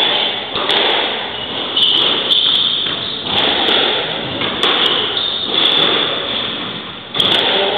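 Squash rally: the ball struck by rackets and smacking off the court walls in sharp hits about every second or so, in a reverberant court.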